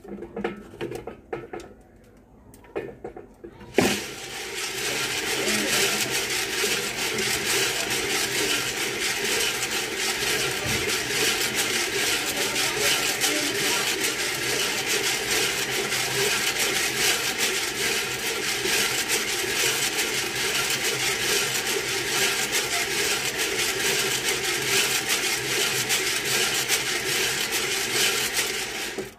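Coffee beans tumbling inside a hand-cranked stainless-steel drum roaster turning over a gas burner: a loud, dense, steady rattle late in the roast, when the beans are smoking. It starts abruptly about four seconds in, after a few knocks, and stops suddenly at the end.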